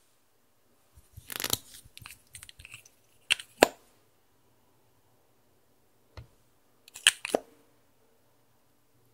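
Small plastic handling sounds from an eyeliner tube being opened: a brief scuffle, then two sharp clicks close together, later a soft knock and a quick run of clicks, with stillness in between.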